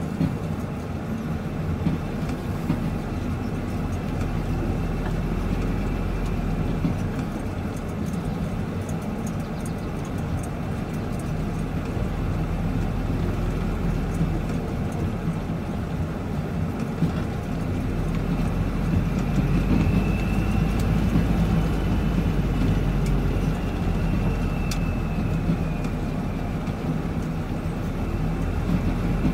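Steady engine drone and road noise inside a truck cab while the truck drives along a gravel road.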